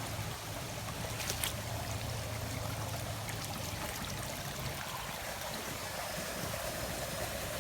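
Steady sound of flowing water, with a faint low hum underneath and a short crackle about a second and a half in.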